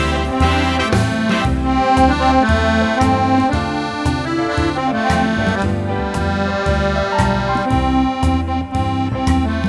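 Accordion playing a melody in held notes over a steady bass-and-chord accompaniment at about two beats a second.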